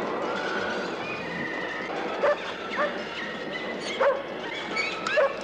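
Dog yipping in play: about five short, sharp yelps in the second half, with high, wavering whines between them.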